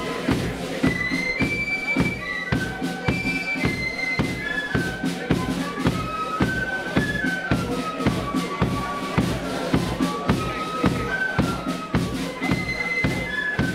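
Flute band playing a march tune, many flutes in unison carrying a stepping melody over a steady beat of bass drum strokes and cymbal clashes.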